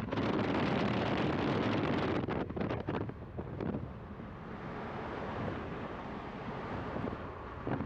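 Wind rushing over the microphone at a moving car's side window, over the car's road noise. It is loudest for the first few seconds, with gusty buffeting around two to three seconds in, then settles to a steadier, slightly quieter rush.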